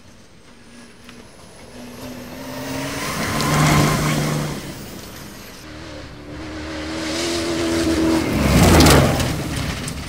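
Two cross-country rally cars passing at full throttle on a dirt road, one about four seconds in and a louder one near the end. Each engine note climbs as the car nears and drops as it goes by, with a rush of tyres and flung gravel at the moment of passing.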